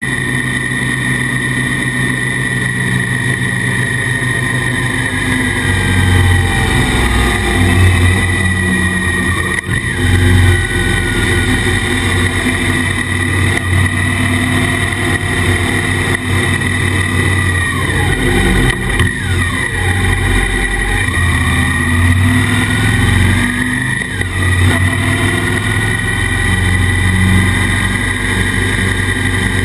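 Suzuki DL650 V-Strom's V-twin engine and Akrapovic exhaust running under way, muffled by the camera's waterproof housing. The pitch rises and falls with acceleration and gear changes, several times around the middle.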